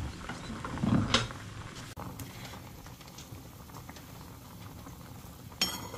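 Pork gukbap broth bubbling at a rolling boil in a metal pot. There is a knock about a second in, and a metal ladle clinks against the pot near the end.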